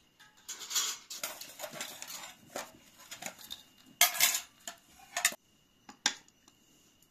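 Serving spoons scraping and clinking against a steel bowl, a metal rice platter and plates as food is dished out, with the sharpest clinks about four, five and six seconds in.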